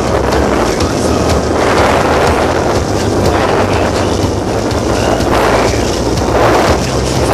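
Wind buffeting the microphone and water rushing and splashing past the hull of a Hobie Cat 16 catamaran sailing at speed. The noise is loud and steady, with a surge of spray about six seconds in.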